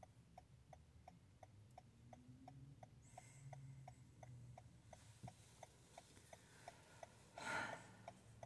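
Car's hazard-light flasher ticking, a steady, evenly spaced clicking over a faint low hum, with a short soft noise near the end.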